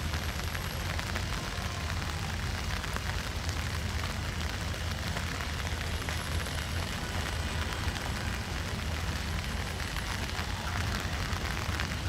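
Diesel locomotive engine running with a steady low drone as the train pulls slowly out, under an even hiss of rain.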